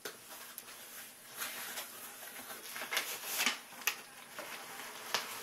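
A parcel being opened by hand: packaging rustling and scraping in short bursts, busiest about three seconds in, with one more near the end.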